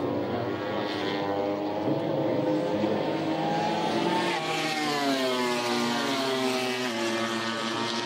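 Engines running, several pitched engine notes at once over a steady rumble, with one note sliding slowly down in pitch from about four to seven seconds in.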